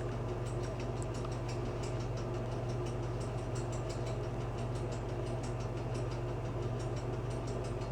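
A steady low mechanical hum with faint scattered ticks: room tone.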